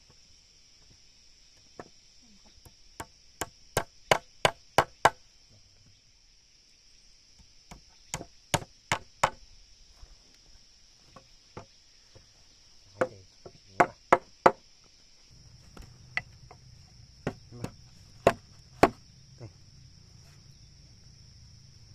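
Repeated sharp blows of a hand tool on wood, in bursts of three to six strokes at about three a second with pauses between. A steady high insect buzz runs underneath.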